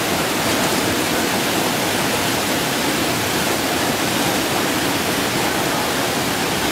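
A muddy flash-flood torrent rushing steadily: a continuous loud noise of fast-moving floodwater.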